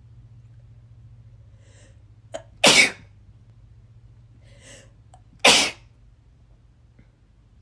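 A person sneezing twice, about three seconds apart, each sneeze preceded by a short, faint in-breath.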